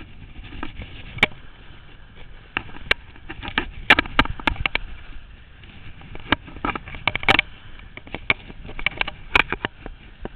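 Skis scraping and chattering over chopped-up, tracked snow on a steep descent: short irregular scrapes mixed with sharp clicks and knocks.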